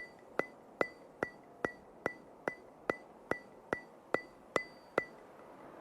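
A steady ticking: sharp clicks about two and a half times a second, each with a short high ring, stopping about five seconds in.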